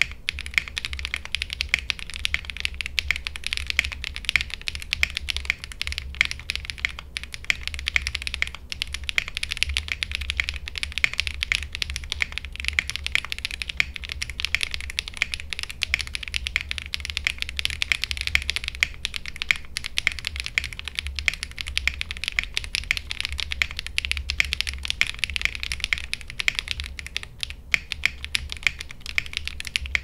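Rapid, continuous typing on a Zoom TKL custom mechanical keyboard: a gasket-mounted build with Modern Grey switches on a polycarbonate plate, PCB foam, lubed Staebies stabilizers and GMK keycaps. Keystrokes run together without pauses and stop at the very end.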